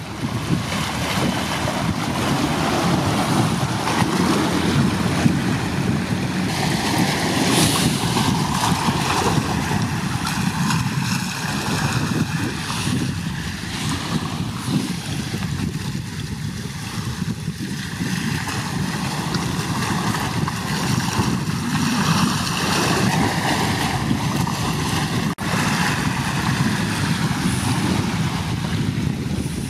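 Wind blowing on the microphone with a low, steady rumble, over the wash of waves on open water.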